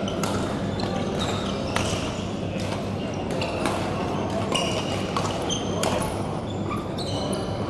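Badminton rackets striking shuttlecocks over several courts in a large, echoing sports hall: sharp clicks at irregular intervals, short high squeaks of shoes on the court floor, and a steady low hum underneath.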